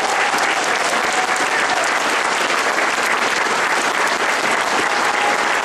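A crowd applauding steadily, a dense wash of many hands clapping at an even level.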